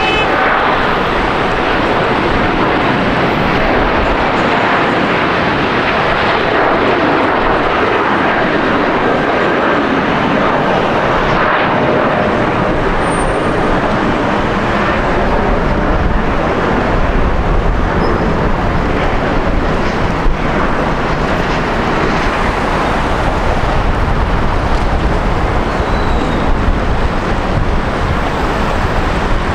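Jet airliner's engines, a loud, steady roar across the whole range, with a deep rumble building in the second half.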